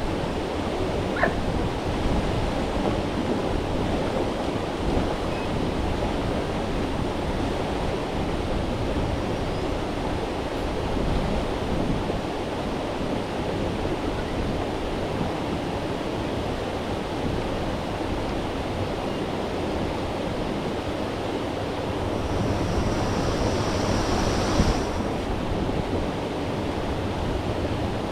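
Rushing water of a brook and its waterfall: a steady, even noise. For a few seconds near the end it turns brighter and hissier.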